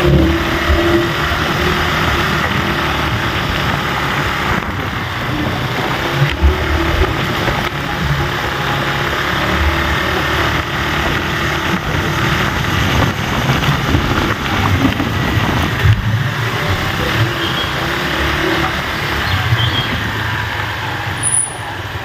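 Motorcycle riding along a rough gravel road: the engine runs steadily under wind and tyre rumble, with a few jolts from the uneven surface.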